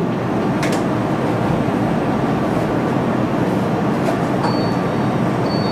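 Steady running noise of an IVF egg-retrieval suction pump, drawing fluid out of an ovarian follicle through the aspiration needle.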